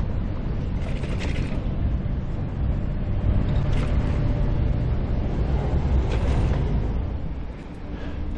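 Steady low rumble of wind and road noise on a camera riding along on a moving bicycle, with a few faint rattles about a second in, near four seconds and after six seconds.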